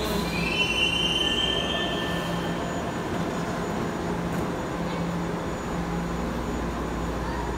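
Line 3 light-rail train in an underground station: a high-pitched metallic squeal for the first two seconds or so, then a steady low rumble.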